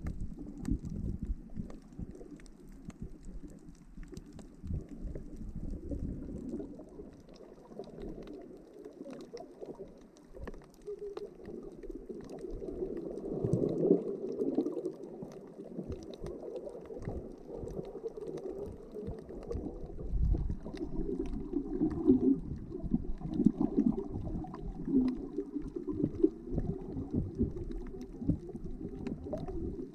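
Muffled underwater water noise heard through a submerged camera: low, irregular gurgling and sloshing as the camera moves through the water, growing louder about halfway through.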